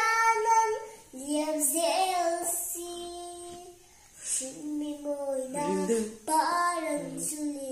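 A three-year-old girl singing unaccompanied in several short phrases, with brief breaks between them and one note held steady for about a second near the middle.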